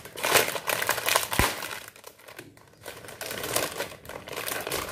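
Metallised plastic chips packet crinkling in irregular rustling bursts as it is handled and pulled open by hand, with a short sharp click about one and a half seconds in.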